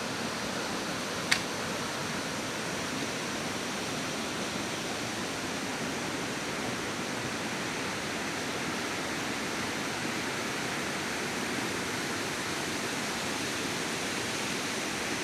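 Steady rushing of flowing water. A single sharp click about a second in.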